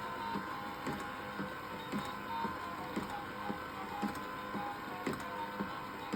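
Battery-operated Anpanman cooking toy running, its mechanism making a regular chopping tap about twice a second over a steady mechanical hum.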